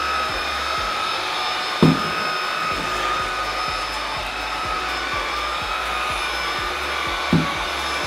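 Xiaomi Dreame V9 cordless stick vacuum running with its floor brush pushed over a tiled floor: a steady high motor whine, its pitch wavering slightly. Two dull knocks, about two seconds in and near the end.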